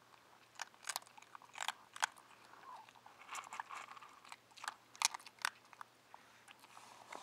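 Newborn puppies suckling at their mother, with faint, irregular wet clicks and smacks.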